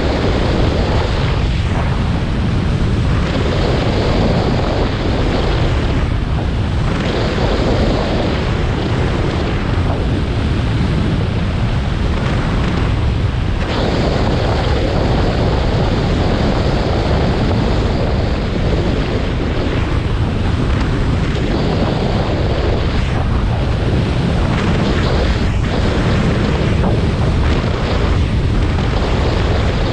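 A snowboard sliding and scraping over snow, its hiss swelling and fading every few seconds. Heavy wind noise on the microphone gives a steady low rumble underneath.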